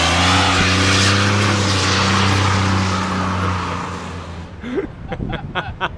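Chevrolet S10 pickup doing a burnout: engine held at high revs while the rear tyres spin with a loud hiss of tyre noise, the sound dying away about four seconds in. A few short sharp knocks follow near the end.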